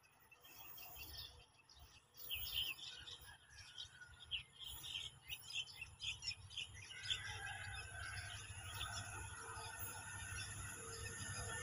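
Birds chirping in quick, repeated short calls over a faint low rumble. From about seven seconds in, a diesel-hauled freight train approaching from a distance grows steadily louder.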